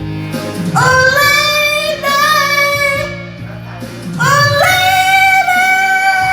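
A pop ballad with a singer holding two long, high sung notes over the accompaniment.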